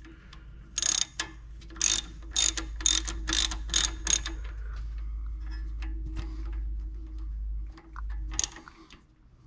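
12 mm ratcheting box-end wrench clicking as it cinches up a brake hose bracket bolt: a crisp burst of pawl clicks about twice a second over the first four seconds, then fainter handling, with one more click burst near the end.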